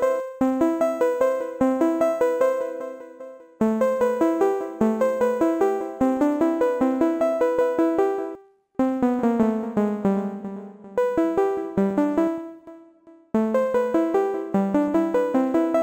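Software-synthesizer arpeggio of short keyboard-like notes repeating quickly, about four a second, from a looping MIDI pattern. It dies away and starts again three times, about a third, halfway and four-fifths of the way through.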